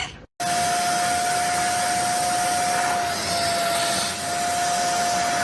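A household appliance's electric motor and fan running steadily: a loud rush of air with one constant whine, starting abruptly.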